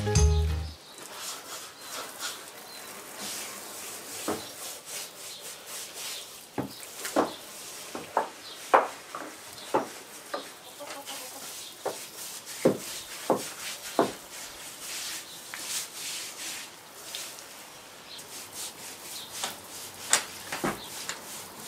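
Scraping and rubbing against the wooden chicken coop as it is cleaned out: a run of short, irregular scrapes and knocks.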